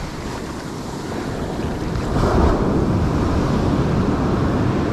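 Ocean surf washing up a sandy beach, with wind buffeting the microphone; a wave surges in about two seconds in and the wash stays louder after it.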